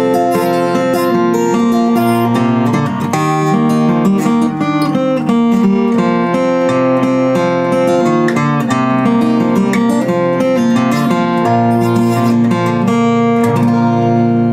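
Handmade steel-string acoustic guitar with a Sitka spruce top and peacock mahogany back and sides, freshly strung, played with quick picked notes over ringing chords. Near the end a strummed chord is left to ring.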